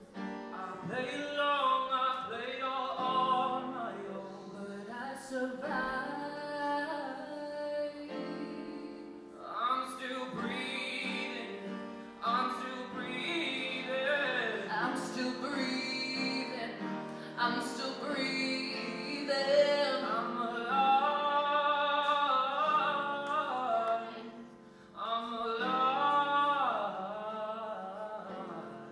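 Live female vocal sung into a microphone with upright piano accompaniment, a slow song sung in phrases with short breaks between them over sustained piano chords.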